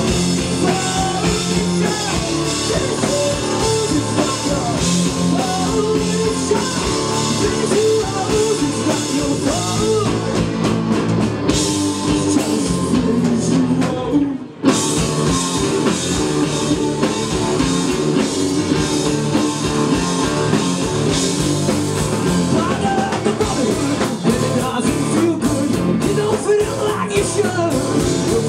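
Live rock band playing loud: electric guitars, bass guitar and drum kit, with a lead vocal. The band breaks off for a moment about halfway through, then comes straight back in.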